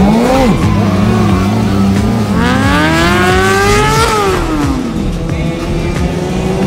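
Sport motorcycle engines running loudly. One revs briefly at the start, holds a steady note, then climbs in pitch for nearly two seconds to a peak and falls away, as a rider holds the throttle through a wheelie.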